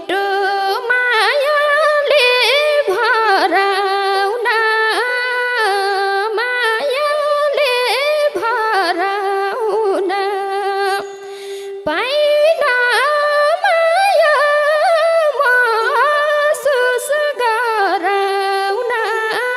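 Nepali folk-music instrumental interlude: a single melody line with bending, ornamented notes played over a steady held drone, without drums. The melody pauses briefly about halfway through, then resumes.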